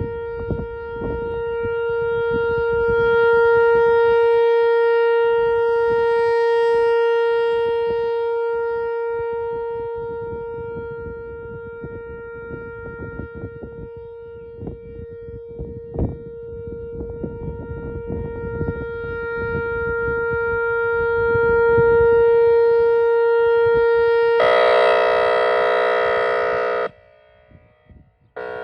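Tornado warning siren sounding a steady single-pitch wail during a test. Its loudness swells and fades slowly, with rumbling noise beneath. Near the end the wail gives way abruptly to a louder, lower, fuller-toned blast that stops suddenly about two seconds later.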